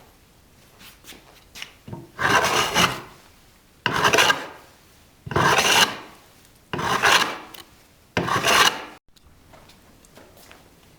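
Hand plane pushed across a wooden board in five long, even strokes, each a rasping shave about a second long, flattening saw-marked wood.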